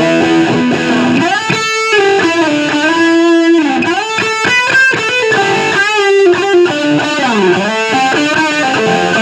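ESP LTD Black Metal electric guitar played as a lead run, its notes bending and diving in pitch and swooping back up several times, which fits its Floyd Rose tremolo bar.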